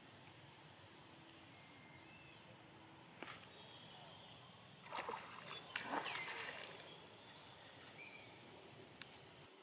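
Faint outdoor ambience with a few short animal calls. The loudest cluster comes about five to six and a half seconds in.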